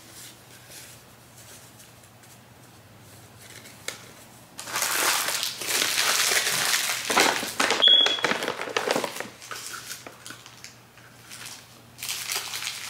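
Paper crinkling and rustling in two bouts, the first longer, as a present is unwrapped.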